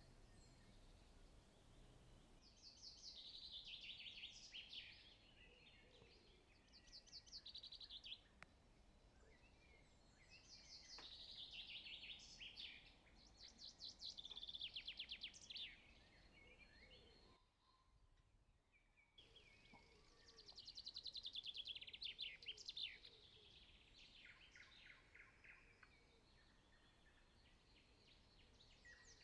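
Faint songbird song: short phrases of rapid trilled notes, each two to three seconds long, repeated every few seconds over a soft background hiss.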